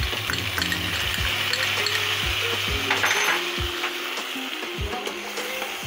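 Ridge gourd pieces sizzling in hot oil in a steel kadai, with onion and ginger paste just added on top, and a few soft knocks.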